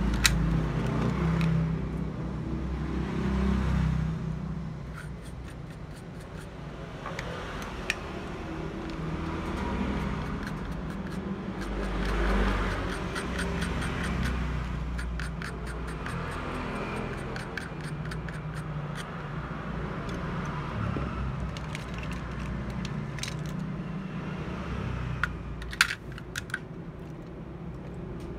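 Low rumble of passing road traffic, swelling and fading, with small clicks and scrapes of handling at the bench. A few sharp clicks come near the end.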